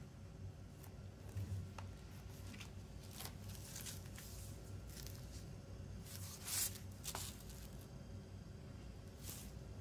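Hands handling shrink-wrapped plastic CD cases on crinkled paper: faint rustling of the cellophane wrap and light plastic clicks as the cases are moved and turned, the loudest about a second and a half in and again past six seconds.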